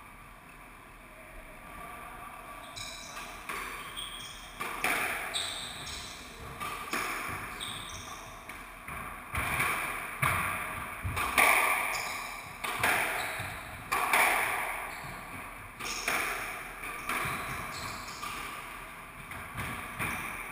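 Squash rally: the ball cracking off rackets and the court walls about once a second, starting a few seconds in, each hit ringing briefly in the enclosed court.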